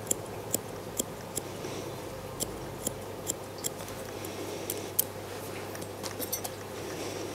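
Pet-grooming scissors snipping through matted fur on a golden retriever's belly: a series of sharp snips, about one every half second, with a quick cluster of several near the end.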